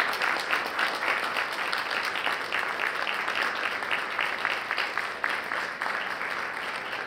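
An audience applauding: dense, steady clapping that slowly grows softer toward the end.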